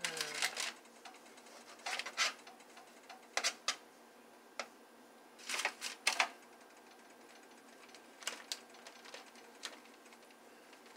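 Knife blade tapping against a cutting board in short clusters of sharp clicks while cutting soft dough into squares.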